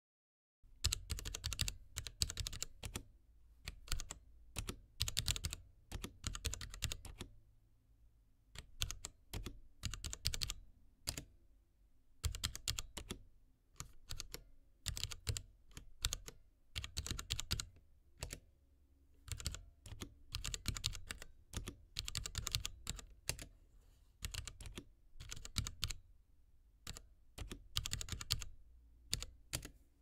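Typing on a low-profile mechanical keyboard with Cherry MX Red linear switches and 3D-printed PLA keycaps, in quick bursts of keystrokes with short pauses between.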